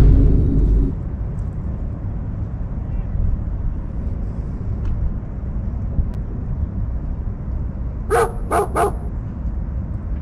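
Steady low rushing noise, with a loud burst in the first second that fades out. About eight seconds in, a dog barks three times in quick succession.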